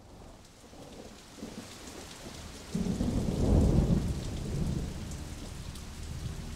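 Steady rain, with a rumble of thunder that breaks in suddenly about three seconds in and rolls away over the next two seconds.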